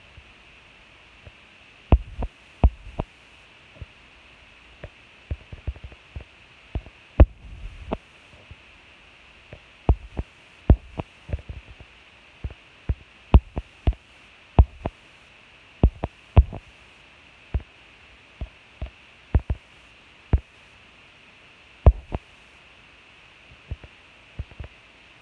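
Irregular dull, low thumps and knocks, about one or two a second and uneven in strength, over a steady hiss. The audio is slowed-down slow-motion playback.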